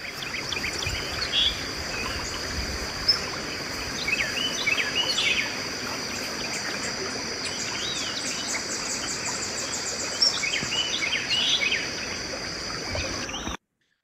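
Field recording beside a wooded creek: several birds singing short chirping phrases over a steady high-pitched insect buzz and a constant background hiss; it cuts off suddenly near the end.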